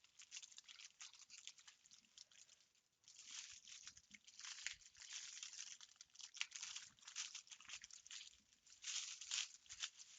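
Faint, irregular crinkling and rustling of packaging as a cross-stitch canvas is handled and put away, with a brief lull about two seconds in.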